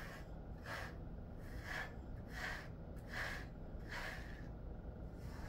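Slicker brush raking through a Jindo-mix dog's coat in short repeated swishing strokes, about one every 0.7 seconds.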